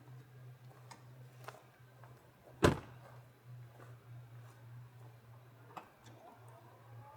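A steady low hum with scattered faint clicks and one sharp knock about two and a half seconds in, the loudest sound; a wavering, gliding tone begins near the end.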